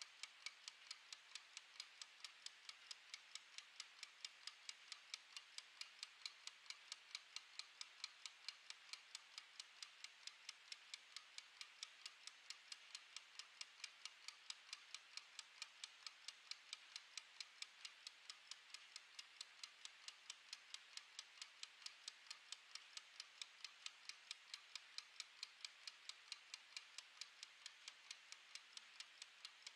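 Mechanical wind-up kitchen timer ticking as it counts down. The ticks are faint, rapid and perfectly even.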